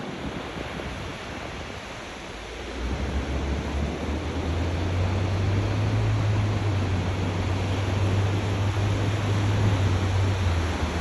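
Steady hiss of surf and wind, joined about two and a half seconds in by the low, steady drone of a bulldozer's diesel engine running, which drops away near the end.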